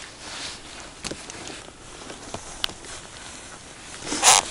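Soft rustling of winter clothing and a few small clicks as an ice fisherman hand-lines a hooked fish up through the ice hole, with one short, loud rustle near the end.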